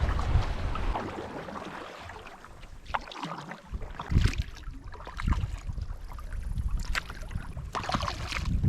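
Kayak paddle strokes dipping and splashing in the water, about one a second. Wind rumbles on the microphone in the first second or so, then dies away.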